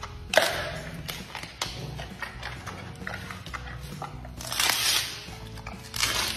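Giant panda biting and chewing a bamboo shoot: irregular crisp crunches and snaps of the fibrous shoot, loudest about half a second in and again around four and a half to five seconds in.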